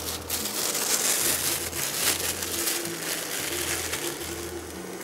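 Tilt-head stand mixer running, its beater working thick choux pastry dough in a steel bowl as eggs are beaten in one at a time. A steady motor sound with a low hum that swells and drops about once a second, and a grainy churning of the dough that eases off near the end.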